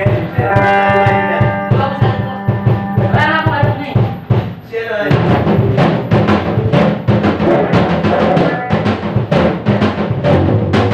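Small live band playing: drum kit and guitars. Held notes over a steady beat at first; after a brief dip about five seconds in, the full band comes in with busy drumming.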